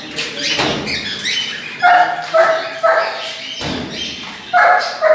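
A dog barking: short, sharp barks about two a second, in a run from about two seconds in and another near the end. Two dull thumps come before the barks, one shortly after the start and one just before the second run.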